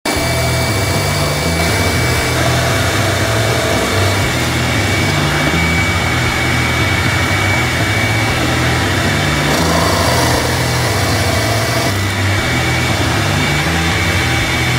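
Benchtop drill press motor running steadily with a high whine while a hole saw is fed down into a pine block, cutting a round plug.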